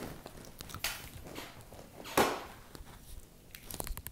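Quiet shuffling as two people settle into leather office chairs: a few soft creaks and rustles, with one louder swish about two seconds in.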